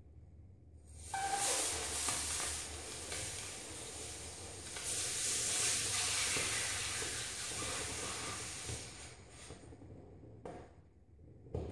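Air hissing out of an inflatable vinyl swim ring through a hole burned by a lit cigarette, starting suddenly about a second in, swelling again midway and fading out after about eight seconds. A short click follows near the end.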